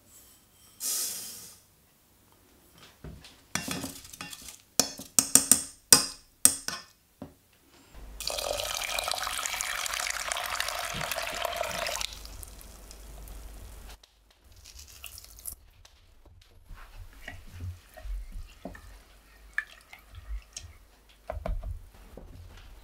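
Dry quinoa poured into a metal sieve over a stainless steel saucepan with a short rustling hiss, then a run of sharp clatters and knocks. Water pours into the saucepan for about four seconds, followed by scattered small ticks and knocks.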